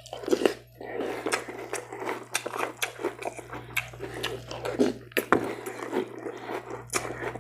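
Close-up chewing of a mouthful of crisp breakfast cereal in milk: many small, irregular crunches with wet mouth sounds, over a steady low hum.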